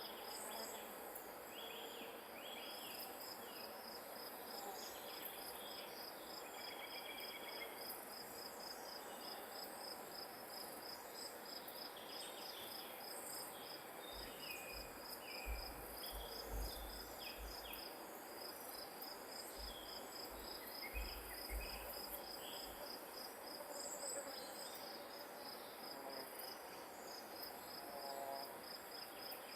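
Grass insects trilling steadily, one high, evenly pulsed trill running without a break, with scattered short bird chirps over it. A few low rumbles of wind on the microphone come in around the middle.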